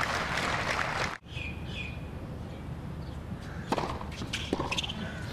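Crowd applause that cuts off suddenly about a second in, leaving a quiet outdoor tennis court with birds chirping. Near the end come a few sharp knocks of a tennis ball as the next serve is bounced and struck.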